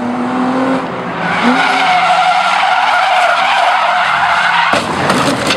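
A drift car sliding: the engine revs up as the tyres break loose into a long, loud squeal, which cuts off suddenly near the end.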